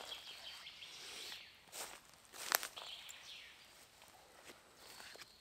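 Footsteps and rustling while a camping tarp is taken down and its stakes pulled, with a few light knocks, the sharpest about two and a half seconds in.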